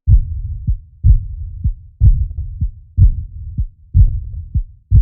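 Heart sounds with an early diastolic decrescendo murmur heard at the left lower sternal border: the murmur of aortic regurgitation. Five beats come about once a second, each a loud thump followed by a softer one, with a low rushing sound fading away after the thumps.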